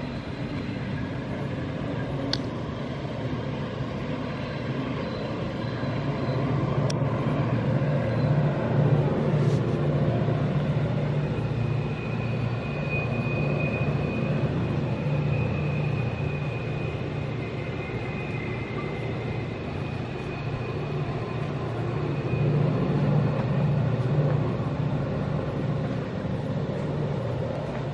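Distant diesel freight locomotives working a train through the valley below: a steady low engine drone that swells and eases twice. A faint high whine sits over it through the middle.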